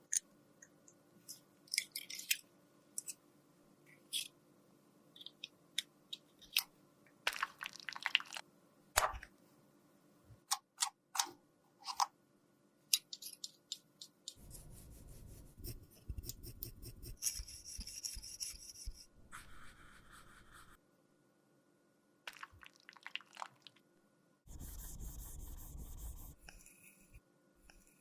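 Close-miked handling of makeup and small tools: scattered sharp clicks and taps, then a long stretch of steady rubbing or scraping about halfway through and a shorter one near the end.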